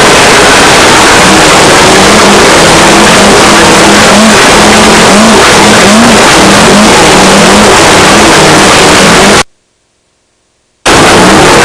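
Off-road race car heard from inside the car at speed: the engine runs hard with its pitch rising and falling, under a loud rush of noise. About three quarters of the way through, the sound cuts out completely for about a second and a half, then returns.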